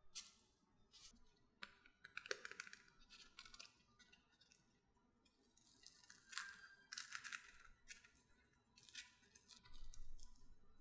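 Faint, crisp crackling of a freshly baked choux pastry shell as fingers squeeze it and tear the cream puff open by hand, in several short clusters of crackles.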